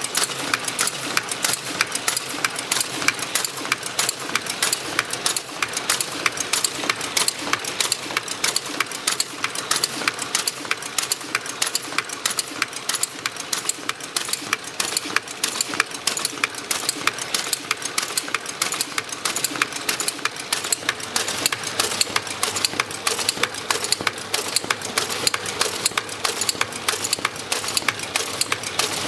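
Tea packaging machine running, with a steady, rapid mechanical clatter of evenly spaced clicks, several a second.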